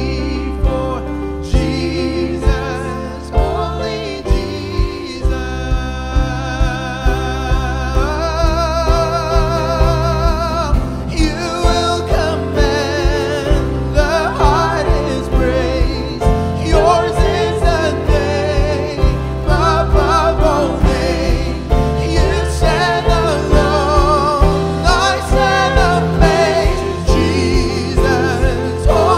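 Church worship team singing a worship song with band accompaniment: voices holding wavering notes over a steady bass and a regular drum beat.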